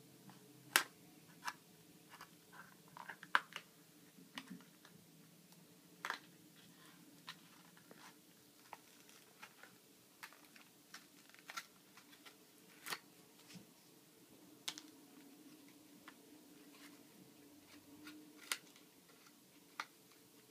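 Scattered light clicks and taps, irregular and about one a second, with a quick cluster a few seconds in, from hands and small tools working on an opened MacBook Pro during a RAM upgrade, over a faint steady hum.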